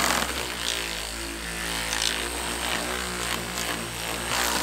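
Ryobi ONE+ cordless buffer running steadily, its motor giving a steady hum as the fluffy pad buffs dried chalky wax cleaner off a fibreglass boat hull.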